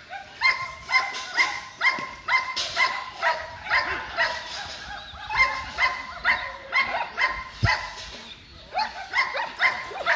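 German Shepherd barking excitedly in quick succession, about two barks a second, with short lulls about halfway through and again near the end.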